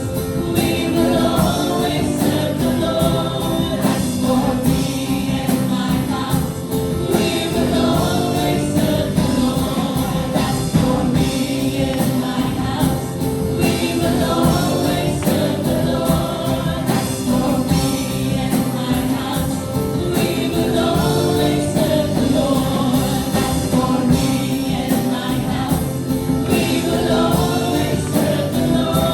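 Praise-and-worship music: a group of singers in gospel-style harmony over a full band with a steady beat.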